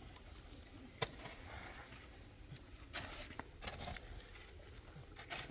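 A few sharp, scattered knocks or clicks over faint background noise: one about a second in, a quick cluster of three around three seconds in, and one more near the end.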